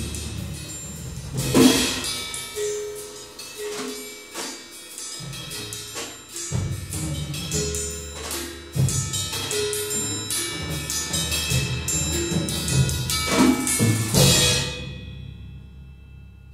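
Percussion quartet playing a rhythmic passage of struck notes, with ringing tubular bells among the instruments. It builds to a loud fortissimo stroke about fourteen seconds in, then the sound dies away.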